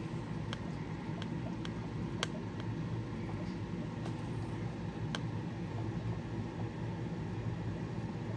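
Steady low hum of fish-room aquarium equipment running, with a few faint sharp clicks scattered through the first half.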